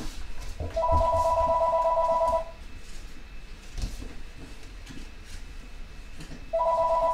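Telephone ringing with an electronic warbling two-tone ring. One ring lasts about two seconds, and a second ring starts near the end.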